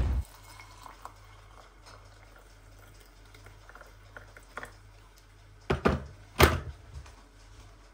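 Hot water poured from an electric kettle into a glass of tea leaves, a faint steady trickle. A sharp knock opens it, and two more loud knocks come close together about six seconds in.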